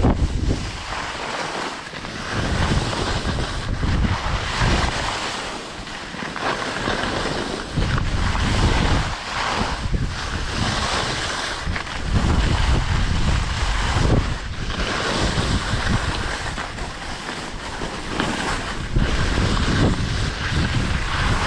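Wind buffeting the microphone in uneven gusts, with a deep rumble that swells and drops every few seconds, over the steady hiss of skis sliding on snow.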